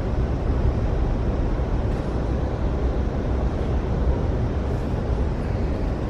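Steady low rumble of an Amtrak passenger train rolling along, heard from inside the car.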